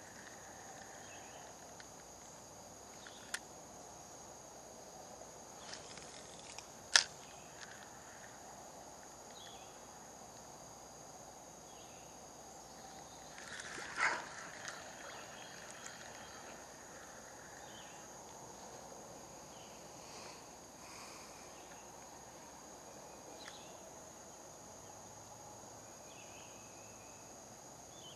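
Steady high-pitched drone of insects with scattered short chirps. A sharp click about seven seconds in is the loudest sound, with a fainter one a few seconds before it. A brief rustling knock comes about halfway through.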